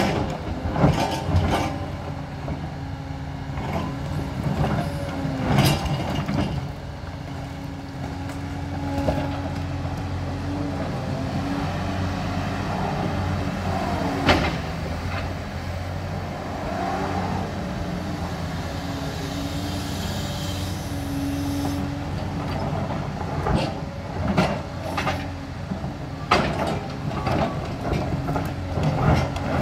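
Liebherr R 946 crawler excavator's diesel engine running steadily under load, with wavering whines as it swings and works the bucket. Clanks and crashes of brick and concrete rubble under the bucket come in a cluster in the first two seconds, singly around six and fourteen seconds in, and in a run near the end.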